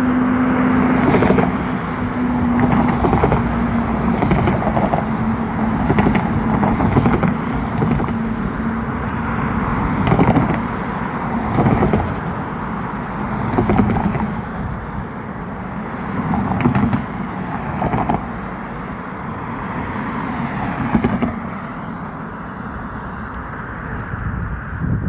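Road traffic running steadily, with a low steady tone that fades out in the first few seconds and short sharp noises every second or two.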